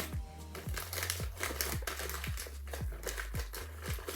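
Background music with a steady bass-drum beat, about two beats a second, over a steady bass line. Light crinkling of plastic packaging sounds through it.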